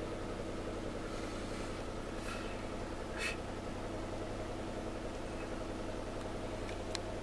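A car engine idling with a steady low hum, heard from inside the car, with a faint tick about three seconds in and another near the end.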